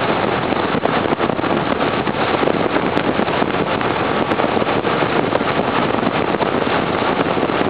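Steady rush of wind and engine noise from a motorcycle cruising at highway speed, heard from the rider's seat with wind buffeting the microphone.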